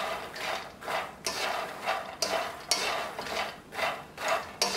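Wooden spatula stirring puffed makhana (fox nuts) around a pan as they roast in a little ghee on a low flame, a rustling scrape about twice a second.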